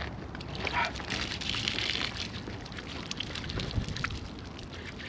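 Water splashing and trickling over hands as they are rinsed and rubbed together, with small splashes and drips.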